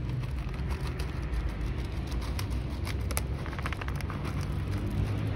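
Steady low rumble of street traffic, with a few faint clicks around the middle.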